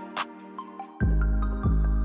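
Background music: soft sustained chords, with a short bright percussion tick just after the start and a deep bass note coming in about halfway through.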